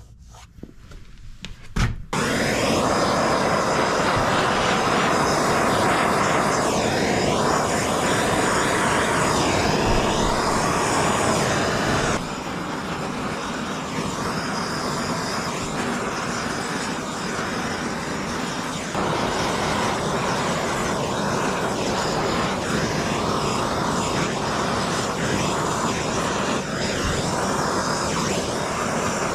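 Bernzomatic hand-held gas torch burning with a steady hiss, its flame passed over oxidized ATV plastic to heat-restore the faded colour. The flame noise starts suddenly about two seconds in and drops a little in level twice later on.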